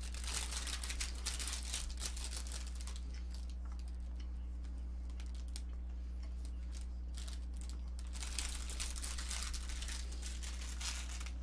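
Dense crackling clicks from a snack being eaten close to the microphone, in two spells: over about the first three seconds and again from about eight seconds in. A steady low electrical hum runs underneath.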